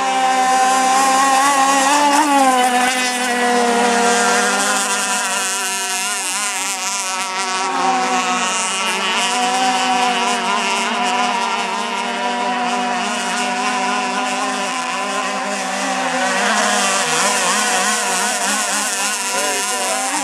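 Two radio-controlled racing boats running at speed, their motors giving a loud, steady, buzzing whine made of several pitches that waver and glide a little as the boats turn and pass each other.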